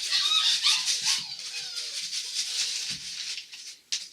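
Puppies whimpering in thin, high, wavering and falling squeaks, over a scratchy rattling rustle of a puppy moving and chewing.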